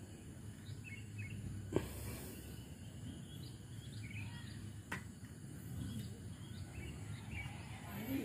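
Outdoor hillside ambience: a steady low rumble of background noise with small birds chirping now and then, and two sharp clicks, the louder about two seconds in and the other about five seconds in.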